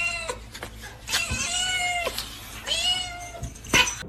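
A domestic cat meowing three times in a row, each meow drawn out for most of a second. A short sharp click comes near the end.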